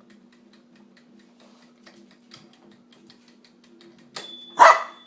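Toaster oven's mechanical timer ticking steadily, about five ticks a second, over a low hum. About four seconds in, a bell rings, with a high ringing tone that lingers, and a single loud bark follows straight after.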